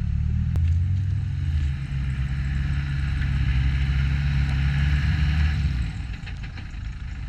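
Land Rover engine running at low revs off-road, a steady low drone that eases off about six seconds in. A single sharp click about half a second in.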